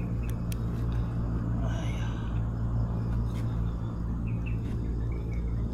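Outdoor ambience: a steady low rumble with faint, short bird chirps repeating through it and a few light clicks.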